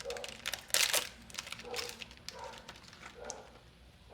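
Foil booster pack wrapper being crinkled and torn open, with sharp crackles in the first second and softer rustling of the wrapper and cards after.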